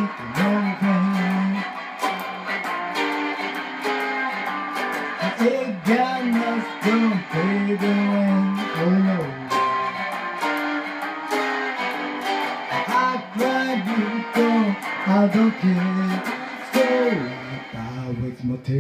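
Gretsch hollow-body electric guitar played live in a rockabilly style, with notes that bend and slide.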